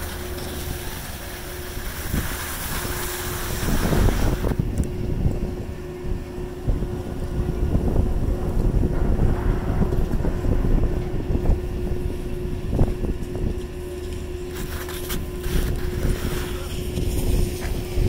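Doppelmayr detachable quad chairlift running: a steady mechanical hum with a few clunks as chairs pass through the terminal, under heavy wind noise on the microphone.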